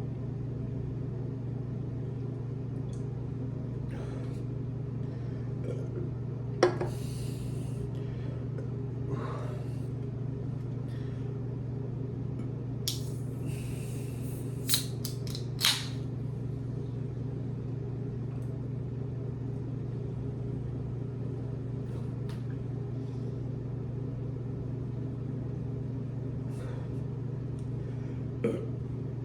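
A steady low hum with a few scattered clicks and short rustling noises over it: a sharp click about a quarter of the way in, and a cluster of rustles with two clicks around the middle.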